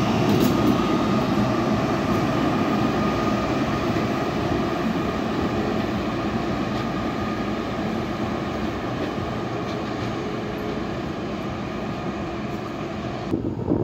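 SNCB class 18 Siemens electric locomotive pushing a rake of M6 double-deck coaches away down the line: a steady rumble of wheels on rail with a thin steady whine, fading slowly as the train recedes.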